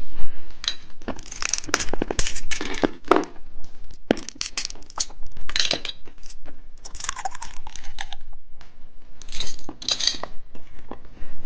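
Candy packaging being handled and opened: wrappers crinkling and tearing, in a run of irregular crackly bursts with small clicks.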